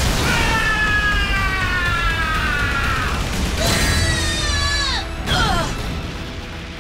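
Cartoon battle sound effects over a steady low rumble. A long creature-like cry slowly falls in pitch for about three seconds. A second, shorter cry about four seconds in drops away steeply as an energy-blast hit lands.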